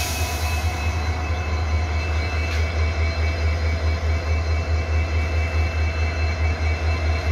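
Idling train locomotive, a steady low throb pulsing evenly, with faint steady whines above it.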